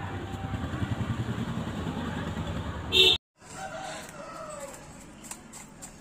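A low rumbling drone with a fast pulse, ending in a short loud burst about three seconds in that cuts off abruptly; after a brief gap, chickens call and cluck.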